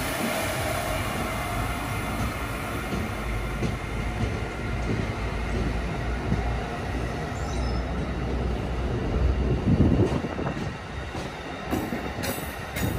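Passenger train moving along the track: a steady rumble of wheels on rail that gets louder about ten seconds in.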